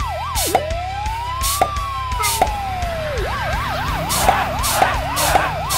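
Police siren sound effect alternating between a fast yelp, about four sweeps a second, and a slow wail that rises and falls once over a couple of seconds, then back to the fast yelp. Sharp clicks sound at intervals underneath.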